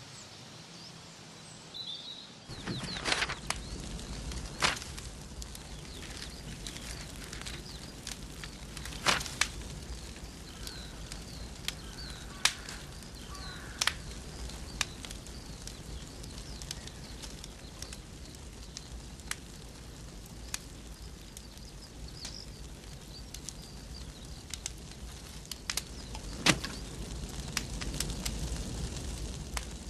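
A fire burning papers, crackling with irregular sharp pops over a low rumble. It cuts in suddenly about two and a half seconds in, after faint outdoor quiet with a few bird chirps.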